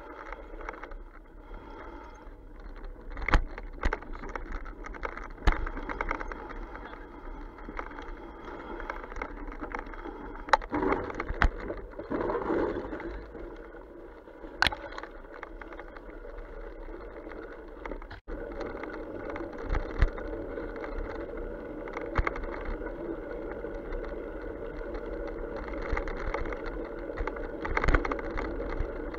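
A fat bike rolling over a wet, muddy forest track and through puddles: the wide tyres make a steady rolling noise. Sharp knocks and rattles come from the bike going over bumps every few seconds.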